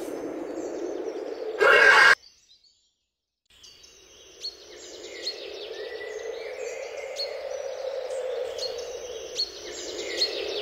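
A steady sound-effect ambience with a short, loud sci-fi mechanical noise that cuts off suddenly about two seconds in. After about a second of silence, an outdoor ambience with birds chirping fades in and runs on.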